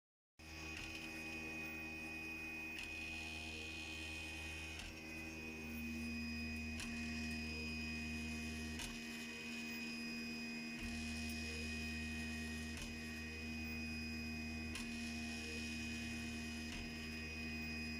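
Home-made 3D printer running: a steady electrical hum with a high, thin whine from the motors and fans. The low part of the hum briefly drops out and comes back a few times as the moves change, with faint ticks between.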